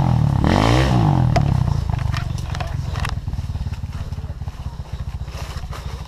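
Dirt bike engine revs up and drops back in the first second and a half, then runs steadily at low revs.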